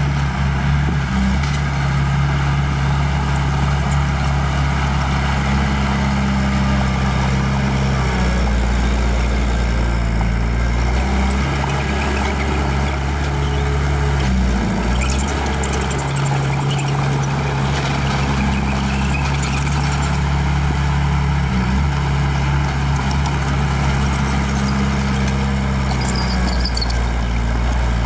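Small bulldozer's diesel engine running under working load, its note shifting several times as the load changes, with intermittent metallic clatter and scraping.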